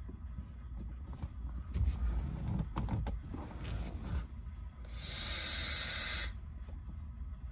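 A draw on a sub-ohm vape with a Cloud Beast King tank: a steady airy hiss of air rushing through the tank for about a second and a half, cutting off sharply near the end. It is preceded by low thumps, rustling and clicks of handling about two to four seconds in.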